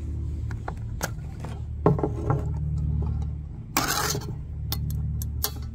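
Pull-tab can being handled and opened: small clicks and knocks, then a short tearing burst about four seconds in as the lid is peeled back. A steady low hum runs underneath.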